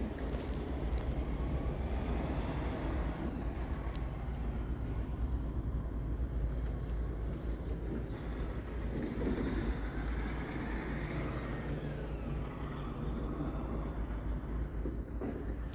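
Steady vehicle noise with a constant low rumble and no clear single event.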